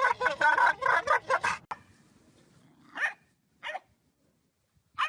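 A rapid run of animal calls for the first second and a half, then a dog's short single barks, three of them about two to three seconds apart.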